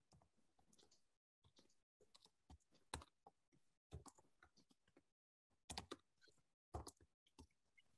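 Faint, irregular clicks and taps of a computer keyboard and mouse, heard through a video-call microphone, with brief cut-outs to total silence between them.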